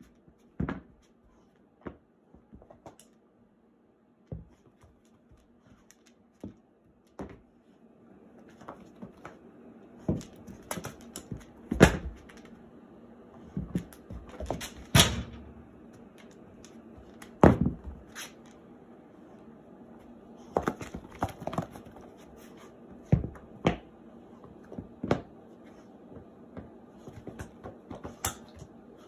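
A dog shaking and flinging a shoe in her mouth, the shoe slapping and knocking irregularly on a hard tiled floor, with scuffling from her feet; the loudest knocks bunch together in the middle stretch.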